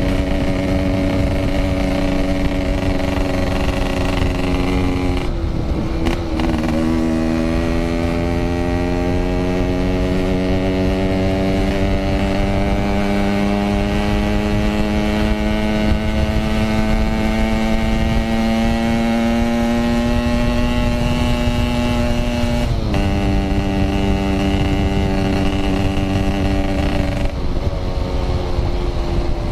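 Yamaha RX-King 135cc single-cylinder two-stroke engine under way. Its pitch drops at a gear change about five seconds in, then climbs slowly through a long pull of some fifteen seconds, and drops again at another shift, with a low wind rush underneath.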